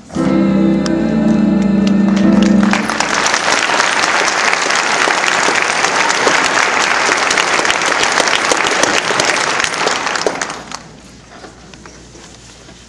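A show choir holds the final chord of a song, cut off about three seconds in, and the audience breaks into applause that goes on for about eight seconds before dying away.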